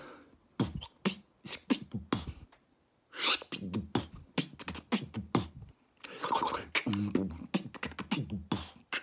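Beatboxing: a man imitating drums with his mouth, sharp pops and clicks in quick runs with short pauses between. About three seconds in a breathy hiss joins the clicks, and from about six seconds a hummed pitched tone runs under the beats.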